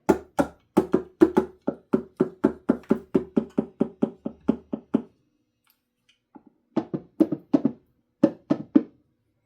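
Humbucker pickups on an unstrung Tele-style kit guitar being tapped to test them, each tap coming through the amplifier as a sharp, pitched knock. The taps come quickly, about four a second, for the first half; after a short pause a second, shorter run of taps follows.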